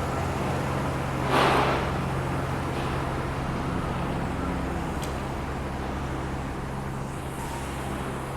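Steady low hum of heavy construction equipment running, with a brief loud rush of noise about a second and a half in.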